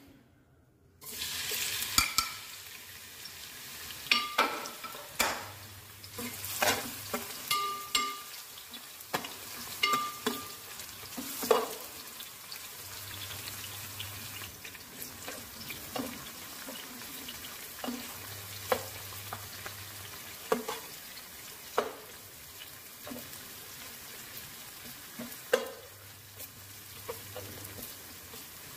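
Sliced onions frying in hot oil in a metal pot, sizzling steadily from about a second in, with repeated sharp clinks and scrapes of a perforated metal spatula stirring against the pot.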